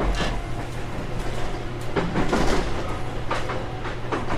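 JR Kyushu 813 series 200 subseries electric train running, heard from inside the car: a steady low rumble with the wheels clicking over rail joints several times. A faint motor tone fades out in the first half second.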